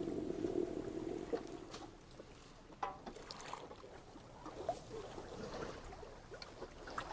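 Water lapping and splashing quietly around a small boat, with scattered light knocks and clicks. A low steady hum fades out in the first second and a half.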